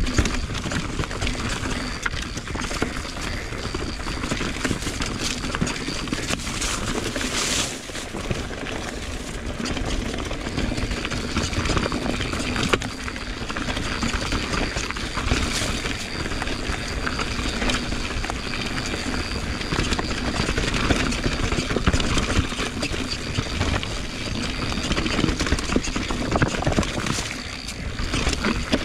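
Mountain bike riding over a rough dirt singletrack: steady tyre noise on dirt and roots, with frequent rattles and knocks from the bike over the bumps.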